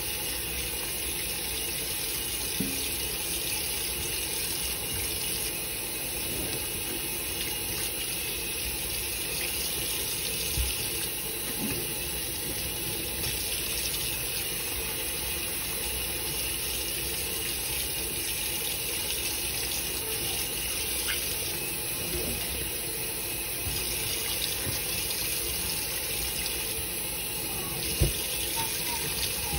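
Kitchen tap running a steady stream of water into a stainless steel sink and down the drain, soapy water being rinsed away. Two short knocks, about ten seconds in and near the end.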